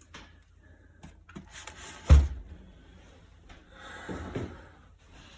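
Handling noise from unboxing a heavy CO2 BB pistol: small clicks and rubbing, with one sharp, solid knock about two seconds in.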